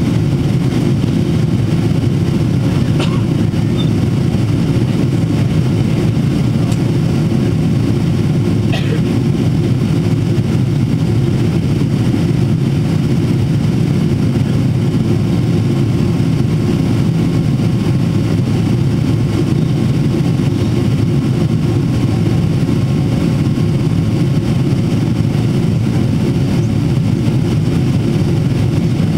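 Cabin noise of a Boeing 777-300ER in flight, heard from a window seat: its GE90 engines and the airflow make a steady low rumble with a faint hum above it.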